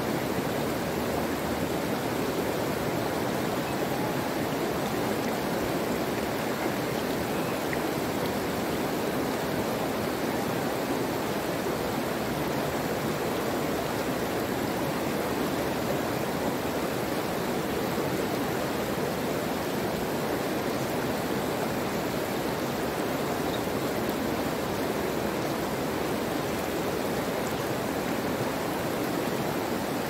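Flowing water rushing steadily and evenly, with no breaks or changes.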